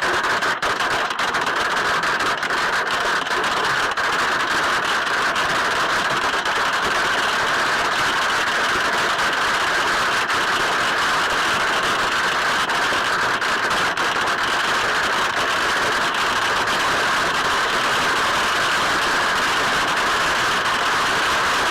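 Hail pelting down in a dense, unbroken roar of countless small impacts.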